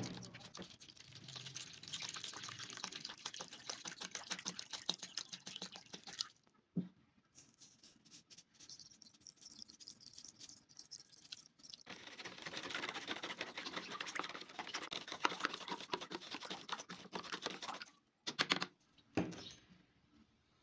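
Rapid, dense scraping strokes on the rusty axe head as rust is worked off by hand, in two spells of about five and six seconds with a pause between. A few single knocks follow the first spell and close out the second.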